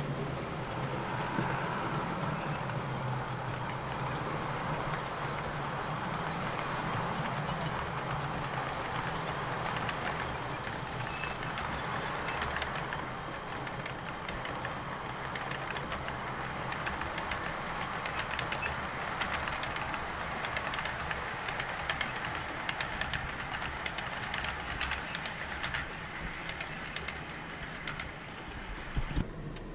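Model freight train of container wagons running past on the layout's track: a steady rumble of wheels and motor, with rapid clicking of wheels over the rail joints through the second half.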